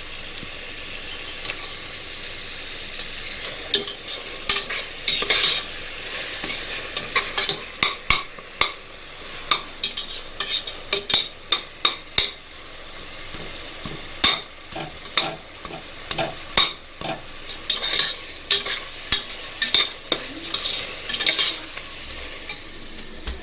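Onion masala with ginger-garlic paste sizzling in hot oil in a pan, being fried off until the raw ginger-garlic smell goes. From about four seconds in, a spoon stirs it, scraping and clicking against the pan many times in quick runs, then stops near the end.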